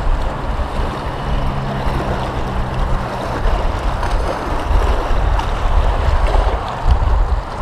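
Strong wind buffeting the microphone: a low, steady rush that swells and dips in gusts.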